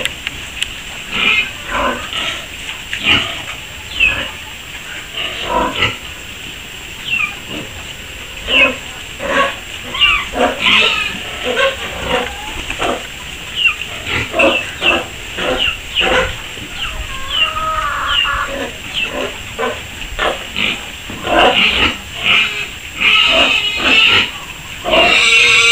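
A pen of young piglets squealing in many short, sharp calls that overlap, growing denser and louder near the end.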